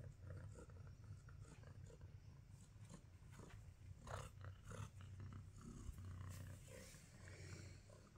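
Domestic cat purring steadily and quietly close to the microphone, with soft rustles of fur and fabric as it is stroked and rubs against a bag.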